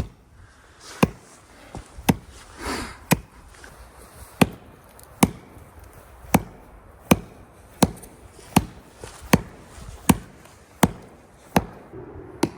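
Axe chopping into a dead tree trunk, about fourteen sharp strikes at roughly one a second, cutting through the last of the wood that supports the tree before it is felled.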